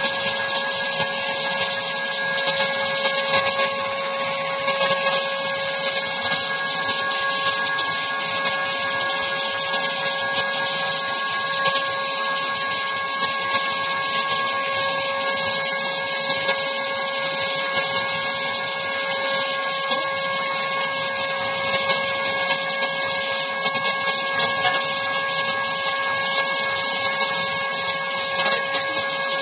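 Airbrush spray-tan machine running steadily: a constant motor whine with several fixed tones over the hiss of the spray.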